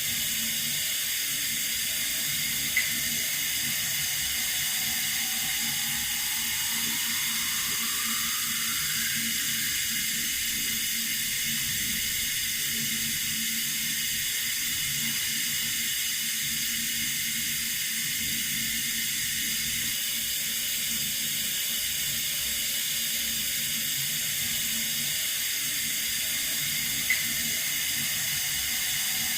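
Water running from a tap in a steady hiss. A faint rising tone climbs through it from about five to nine seconds in, and a short click comes about three seconds in and again near the end.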